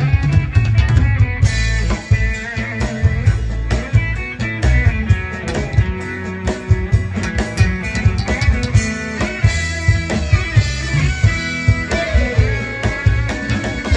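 Live rock band playing an instrumental passage: electric guitar lines over drum kit and bass, with regular drum hits.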